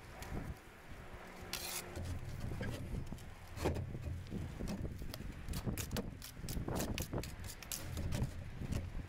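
Bricklayer's steel trowel scraping and knocking against a mortar board: a short scrape about a second and a half in, then a run of quick clicks and taps in the second half.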